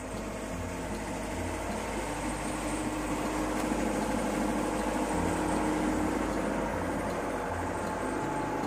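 A boat engine running steadily aboard a bagang lift-net fishing boat.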